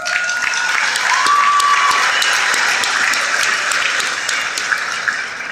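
Crowd applauding steadily, the clapping tapering off slightly near the end.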